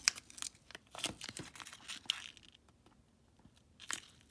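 Screen adhesive crackling and tearing as the heated, cracked screen of an iPod nano 6th generation is slowly pried up: a run of small clicks and crackles for about two and a half seconds, then one more crackle near the end.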